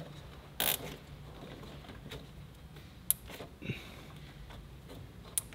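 A zip tie being fastened around ribbed plastic coolant hoses by hand: faint handling noise, a short rasp about half a second in, and a few sharp small clicks later on.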